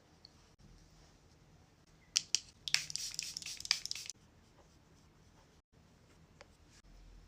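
Two sharp clicks, then about a second and a half of scratchy, crackly rustling with small clicks in it, then a few faint ticks: makeup products being handled up close.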